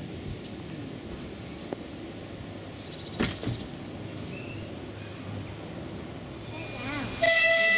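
Narrow-gauge diesel locomotive's horn sounding a steady note near the end, starting suddenly. Before it, only a quiet outdoor background with a single knock about three seconds in.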